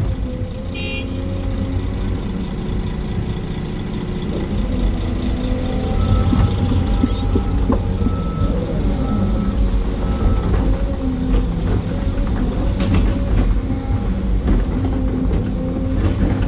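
SANY 385 excavator's diesel engine and hydraulics running under load, heard from inside the cab, as it dumps a bucket of earth into a truck and digs. From about six seconds in, a warning beep repeats about once a second.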